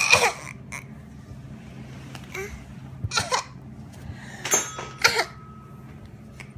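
One-year-old toddler fake-coughing: about four short put-on coughs, the loudest at the start and the rest clustered a few seconds later.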